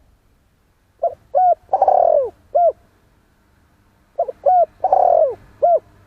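Spotted dove cooing: two phrases of its cooing song, each a few short coos around a longer, louder central coo, the first phrase about a second in and the second just past the middle.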